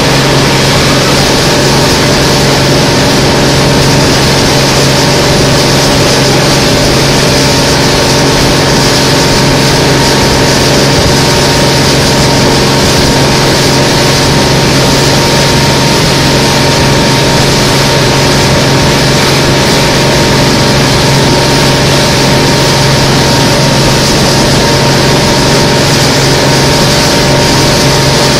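A small boat's engine running steadily at cruising speed, heard from on board: an even, unchanging hum over a constant hiss of water and wind.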